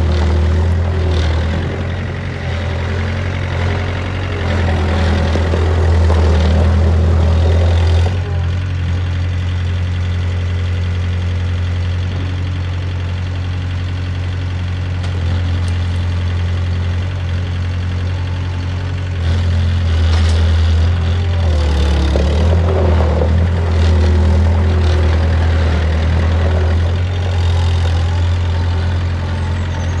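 Belle 761 skid-steer loader's engine running as the machine is driven and turned and its loader arms are raised. The engine note is louder at first, drops about a quarter of the way in, and picks up again about two-thirds through.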